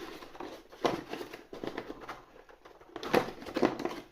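Handling of the advent calendar's cardboard and plastic packaging and small plastic pieces: light crinkling with a few sharp taps and clicks, one about a second in and two close together a little past three seconds in.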